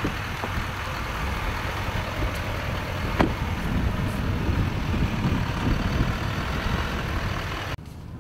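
Chevrolet Silverado 3500HD's 6.6 L Duramax turbodiesel V8 idling steadily, with one sharp click about three seconds in; the sound drops away abruptly near the end.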